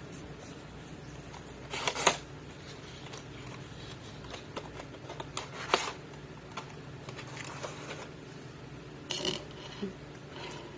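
Packaging being handled and opened to get a small item out: scattered crinkles and clicks over a steady low hum. The loudest bursts come about two seconds in, near the middle and near the end.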